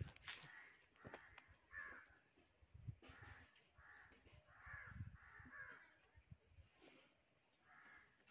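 Faint crows cawing repeatedly, with a few soft knocks.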